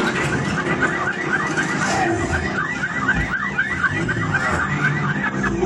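Action-movie soundtrack played through a home-theater system with large subwoofers: an electronic alarm warbling in fast rising chirps, about five a second, over continuous deep bass.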